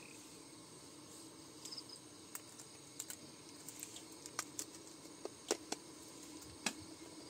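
Steady high-pitched chirring of crickets, with a scattered run of sharp clicks and taps over it.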